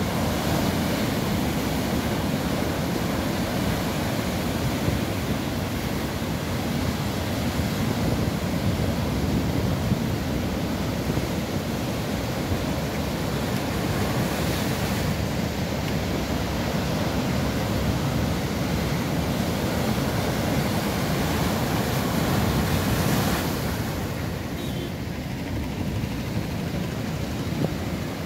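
Heavy surf of a rough sea during a severe sea surge, waves breaking and washing over a rock seawall in a steady roar of water, with wind buffeting the microphone.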